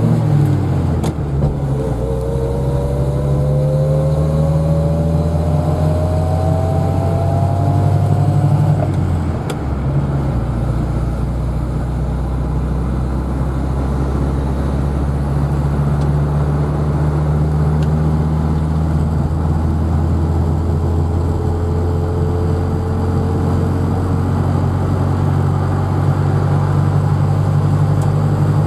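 Cabin sound of a 1953 Opel Olympia Rekord under way, its 40 hp four-cylinder engine running steadily. A gear whine rises in pitch with road speed twice, from the rebuilt 1957 gearbox, whose gears are noisier in the intermediate ratios, a sign of a high-mileage transmission. There is a short break in the engine note about nine seconds in.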